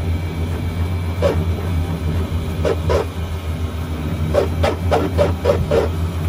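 A steady low drone with a string of short, sharp squeaks at irregular spacing: one early, a pair in the middle, and a quick run of five or six near the end.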